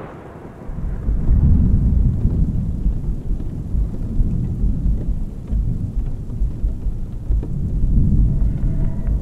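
Thunderstorm ambience: a low rolling rumble of thunder under rain, swelling up about a second in.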